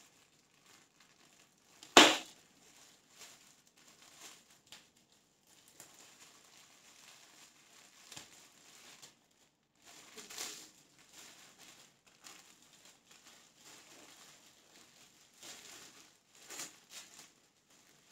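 Clear plastic packaging bags crinkling and rustling in scattered bursts as they are handled and opened, with one loud sharp crackle about two seconds in.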